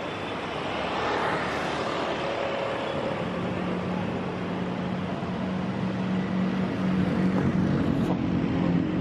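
Road traffic on a city avenue: a motorcycle goes by about a second in, then a steady engine hum grows louder over the second half as cars approach.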